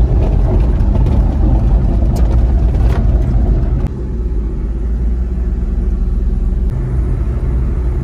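A car driving along a road, heard from inside the cabin: a loud, steady engine and road rumble.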